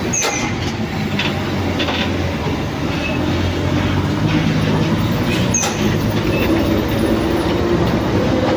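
Heavy truck or bus engine labouring up a steep climb: a steady low drone with a few sharp clicks over it.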